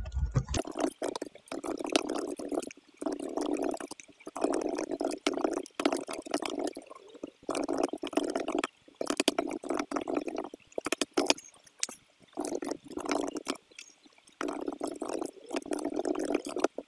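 Computer keyboard typing: dense key clicks in quick runs of about a second, broken by short pauses.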